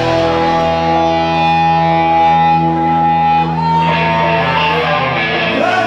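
Live rock band's distorted electric guitars letting chords ring out without drums, joined about three and a half seconds in by a high guitar note that bends and wavers up and down.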